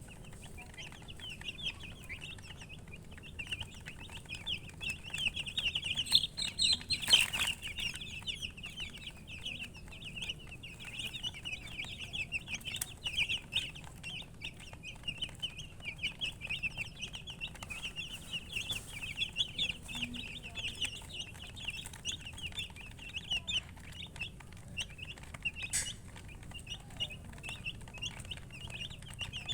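A group of baby chicks peeping continuously, many short high chirps overlapping. There is a sharp knock about a quarter of the way in.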